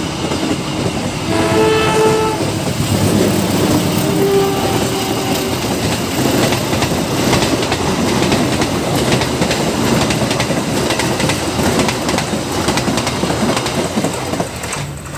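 Passenger train approaching and passing close by. The horn sounds twice in the first five seconds, a held blast about a second long and then a fainter shorter one, and after that the coaches' wheels clatter steadily over the rail joints.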